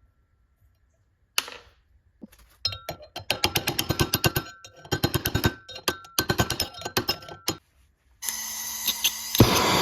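Rapid light taps on metal, about five or six a second for some five seconds, with a faint ringing note. About eight seconds in a steady machine noise starts, and it gets much louder near the end.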